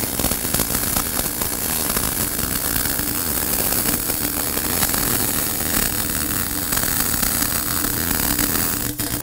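Miller RMD (regulated metal deposition) short-circuit MIG welding arc crackling steadily while running a root pass on 9% chrome pipe with P91 wire. The arc cuts off abruptly near the end as the weld is stopped.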